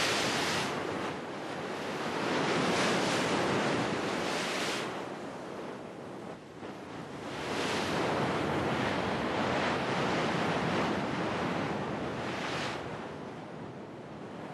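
Sea surf breaking against rocky cliffs: a continuous wash of crashing water that swells into louder surges every few seconds and eases off near the end.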